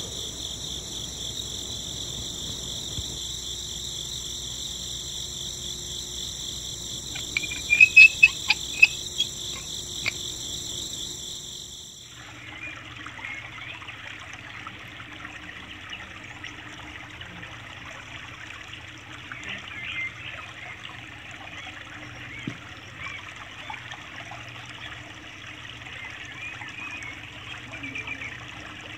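A steady, shrill, high pulsing tone, with a few sharp loud chirps about eight seconds in, stops suddenly about twelve seconds in. After that comes a thin stream of water trickling from a small plastic tube into a shallow channel of standing water.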